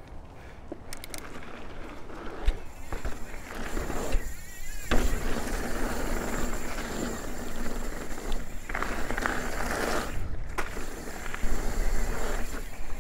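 Steel hardtail mountain bike rolling fast down a packed-dirt jump trail: a steady rush of tyre noise on dirt, with a few sharp knocks and rattles from the bike over bumps.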